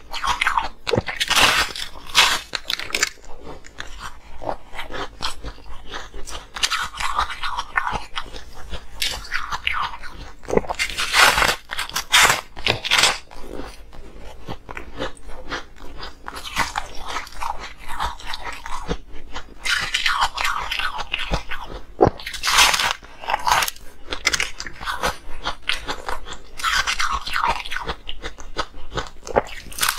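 A person biting and chewing ice close to the microphone: crisp cracking and crunching as chunks break off between the teeth, in loud spells every few seconds with quieter chewing between.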